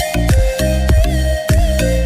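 Electronic background music with a steady beat, a deep bass line and wavering synth tones.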